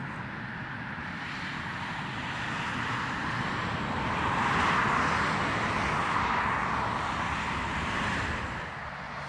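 The jet engines of an Airbus A320-211 (CFM56-5A) during the landing roll-out. A steady rushing jet noise swells to a peak about halfway through, then eases off near the end, as reverse thrust spools up and back down after touchdown.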